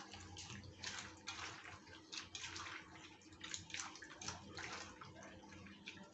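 Wet squishing of tomato and brinjal chokha being mashed by hand in a steel bowl, in quick irregular squelches.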